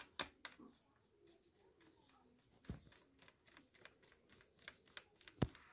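Light, scattered clicks and taps of hands handling a Dell Inspiron N5110 laptop's plastic base, with a dull knock about two and a half seconds in and another near the end.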